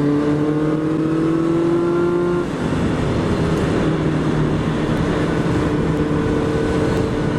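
Honda CB650F inline-four engine pulling hard with its pitch rising for about two and a half seconds, then dropping sharply on an upshift and holding steady at cruising speed, over a constant rush of wind.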